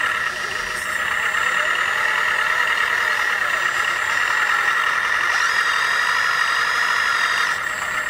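Electric drive motors, gearboxes and hydraulic pumps of 1/14-scale RC construction models running with a steady whine, joined by a higher thin whine for about two seconds near the end.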